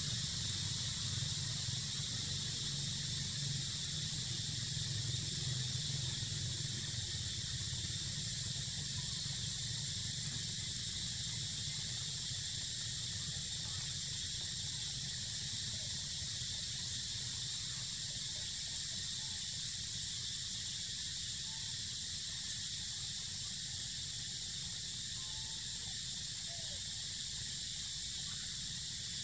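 Steady, high-pitched drone of an insect chorus, unbroken throughout, over a low rumble.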